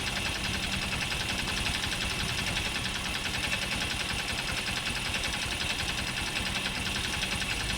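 Honda Super Cub's single-cylinder four-stroke engine idling steadily with a fast, even ticking and clattering noise. The owner suspects the abnormal noise comes from the crankshaft and the cylinder head.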